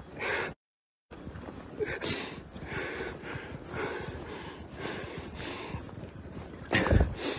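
A man breathing heavily and unevenly while crying, roughly one breath a second. The sound cuts out briefly about half a second in, and a loud, low thump near the end is typical of a handheld phone's microphone being knocked.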